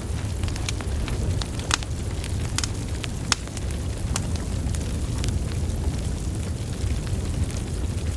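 Wood fire burning: a steady low rumble of flames with irregular sharp crackles and pops from the burning logs, a few of them louder than the rest.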